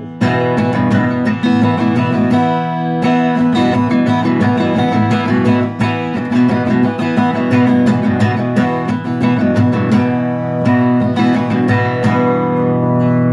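Acoustic guitar strummed without singing, ending with a chord left to ring near the end.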